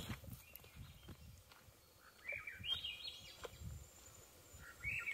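A songbird singing faintly, a short phrase of stepped rising notes heard twice: once about two seconds in and again near the end.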